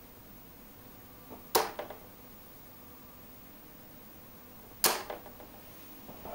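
Two darts striking a Unicorn Eclipse Pro bristle dartboard about three seconds apart, each a sharp thud followed by a brief rattle.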